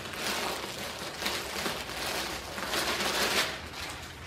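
Clear plastic packaging bag crinkling and rustling as it is pulled off a packed camp chair, in several bursts, loudest about three seconds in.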